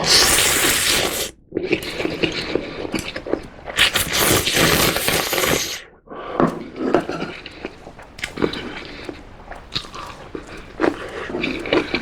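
Close-miked eating of spicy ramen: two long noisy slurps of noodles, one at the start and one about four seconds in, then chewing with small wet clicks and crackles.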